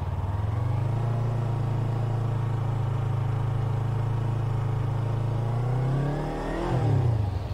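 Yamaha R3's 321cc parallel-twin engine pulling away slowly in first gear at low revs, the clutch eased out with little throttle, holding a steady low note. Near the end the revs rise briefly and then drop away.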